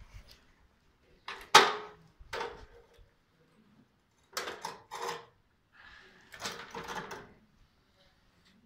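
A few separate clunks and scrapes, the loudest about one and a half seconds in, as a 1927 Peugeot P 102 B motorcycle is handled and rocked onto its rear stand; the engine is not running.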